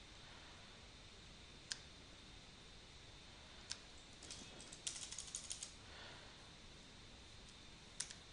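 Faint computer keyboard and mouse clicks: a few single clicks, and a quick run of key taps about four to six seconds in as characters are deleted from the code.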